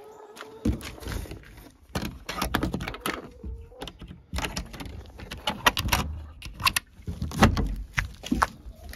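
Metal carabiner clinking and rattling against the steel hasp latch of a wooden chicken-coop door as it is unclipped, with irregular knocks and clatter as the door is worked open.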